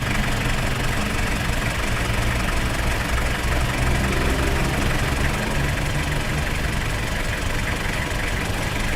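Bus engine idling steadily with a low, even rumble that cuts in suddenly at the start.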